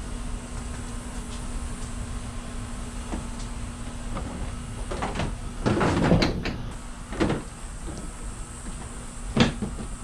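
Plastic front bumper cover of a 2022 Hyundai Palisade knocking and scraping against the car body as it is lifted and pressed into place, with a cluster of knocks about six seconds in and single knocks after seven seconds and near the end, over a steady background hum.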